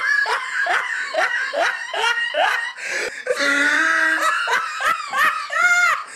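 Human laughter: a run of short laugh bursts, each rising in pitch, about two or three a second, with one longer rising-and-falling note near the end.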